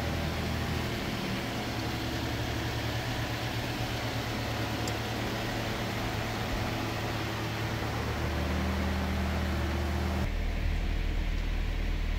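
2018 Toyota Corolla's four-cylinder engine idling steadily with a low hum. About ten seconds in, the hum turns deeper and duller as it is heard from inside the cabin.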